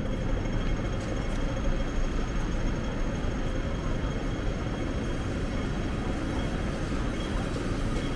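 City street ambience: a steady low rumble of traffic and street noise heard while walking along a busy pavement.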